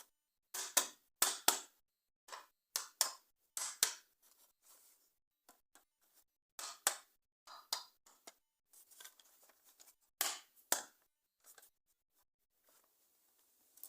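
Plastic toy parts and packaging handled close up: irregular crisp crinkles, snaps and clicks. They are busiest in the first four seconds and come again as two louder snaps about ten seconds in.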